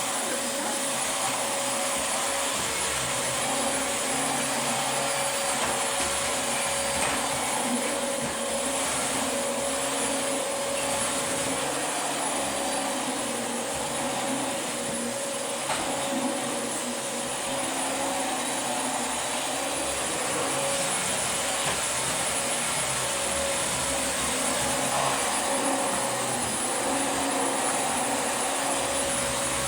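Dyson DC25 Animal upright vacuum cleaner running steadily, its motor giving a high, even whine over the rush of air.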